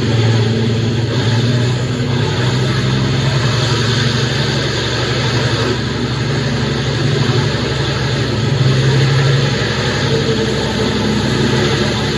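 A vehicle engine running steadily at a low, even hum.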